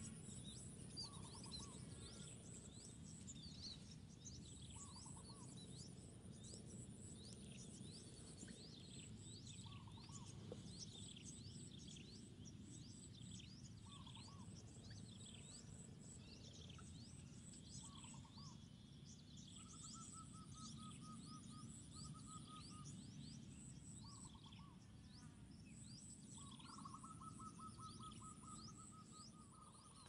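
Faint chorus of small birds chirping, with a high insect buzz that comes and goes. A short lower call repeats every few seconds, and a rapid trilled note comes twice in the second half.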